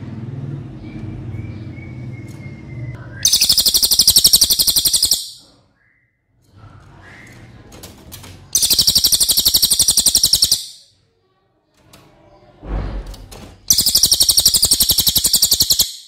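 A cililin songbird singing a loud, high, very rapid trill three times, each burst about two seconds long: the long, dense 'nembak' song.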